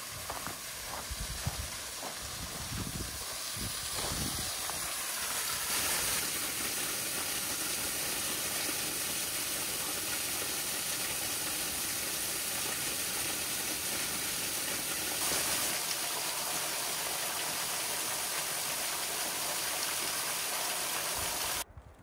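Footsteps on the trail, then a waterfall's steady rush of falling water that cuts off suddenly near the end.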